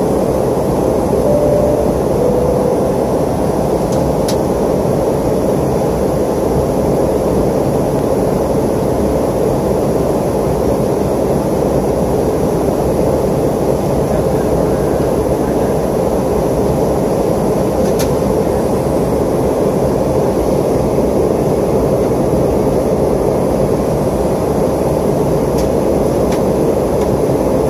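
Steady, even engine and airflow noise of a jet airliner heard from inside the passenger cabin during descent.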